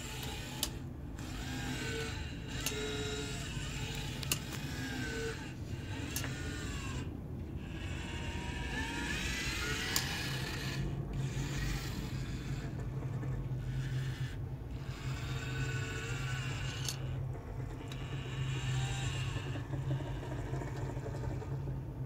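Small electric motors of a DIY pan-and-tilt camera head, driven from a joystick, whining in short runs that rise and fall in pitch as the head pans and tilts, over a steady low hum. A few light clicks come through now and then.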